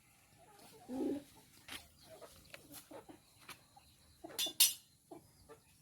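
Chickens calling softly, with a low call about a second in, among scattered short clicks. Two sharp, louder noises come about two-thirds of the way through.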